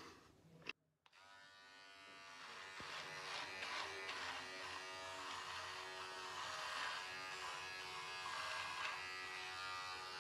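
Electric beard trimmer buzzing steadily as it cuts through a thick beard. It starts about a second in, grows louder over the next few seconds and wavers as the blades move through the hair.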